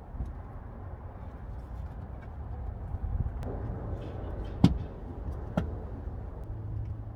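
Plastic interior trim panel of a minivan being yanked loose: a few sharp snaps as it pops off, the loudest about four and a half seconds in, over a low steady rumble.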